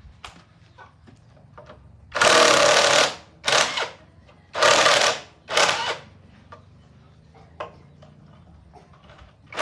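A power tool run in four short bursts of about half a second to a second each, starting and stopping abruptly, with a faint hum between them.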